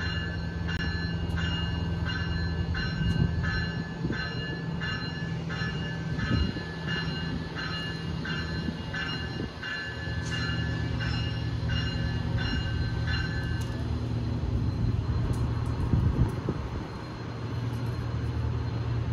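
A train's warning bell rings in a steady rhythm about twice a second and stops about fourteen seconds in. Under it, a diesel locomotive's engine runs with a steady low note throughout.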